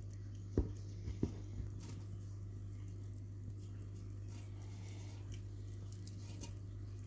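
Siberian cat eating cooked chicken from a pot: small, quick, wet chewing and licking sounds, with a hand picking through the meat. Two soft knocks come about half a second and a second in, over a steady low hum.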